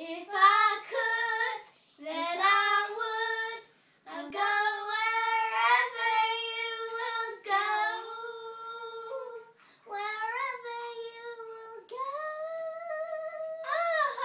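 Young girls singing a tune unaccompanied, in several phrases with held notes and short breaks between them.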